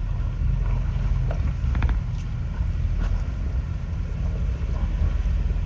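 Jeep Wrangler engine running low and steady as it crawls over rocks, with a few faint clicks about two and three seconds in.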